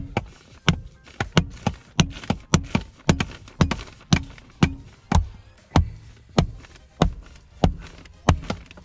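Background music with a steady percussive beat: sharp hits about two a second in a repeating pattern over faint held notes.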